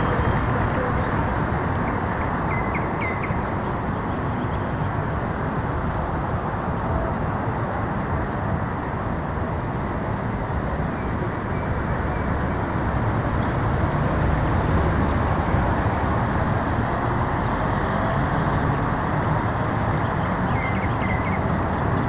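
Steady city traffic noise, with faint nightingale song above it: a few short trills about three seconds in and again near the end.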